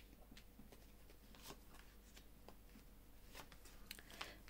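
Tarot cards being dealt one at a time onto a cloth-covered table, heard as faint, scattered card slaps and slides.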